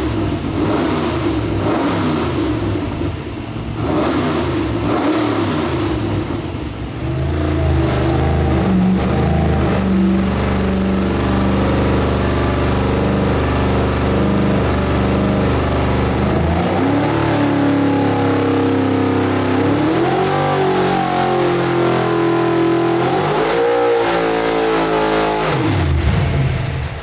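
Pontiac 455 V8 running on an engine dynamometer and revving under load in power pulls, its pitch climbing in several rising sweeps in the second half.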